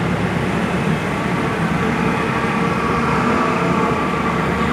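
Steady din of city street traffic, motor vehicle engines running.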